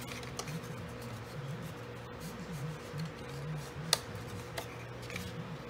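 Paper being folded and handled by hand, making light ticks and crinkles with one sharper click about four seconds in, over a steady low hum.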